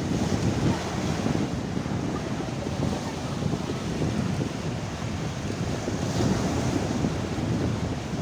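Sea waves washing onto the shore in a steady surf, with wind buffeting the microphone.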